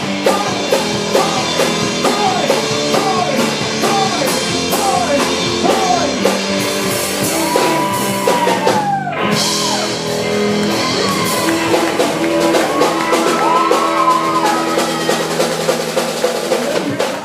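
A rock band playing a song with a singer, guitar and drum kit.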